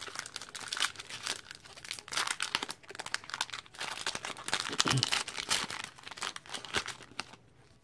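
Foil Pokémon booster pack wrapper crinkling and being torn open by hand. A dense, irregular crackle that dies down near the end.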